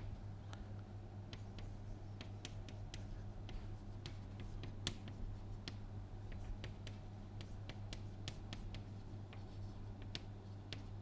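Chalk writing on a blackboard: a string of short, irregular, sharp taps and clicks as the chalk strikes and strokes the board, over a steady low hum.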